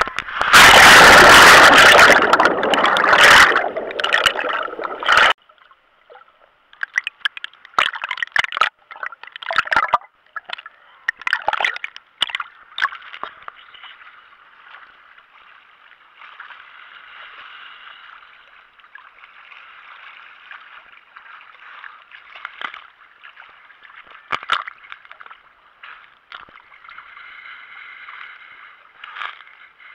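Heavy splashing of seawater over a waterproof action-camera housing for the first five seconds or so, stopping suddenly. It is followed by muffled sloshing and gurgling of small waves lapping against the housing at the surface, with scattered splashes.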